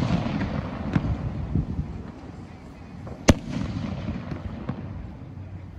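Fireworks going off: a smaller crack about a second in, then one sharp, loud bang a little over three seconds in, with a rumbling, echoing tail after each.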